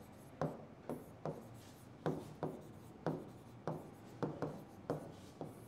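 Handwriting strokes on an interactive touchscreen board: a string of short, faint taps and scrapes, roughly two a second, as words are written in digital ink.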